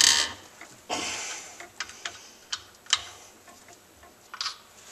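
Scattered sharp metal clicks and a short scrape from a wrench loosening the main bearing cap nuts on a Suzuki G16A engine block, a little at a time.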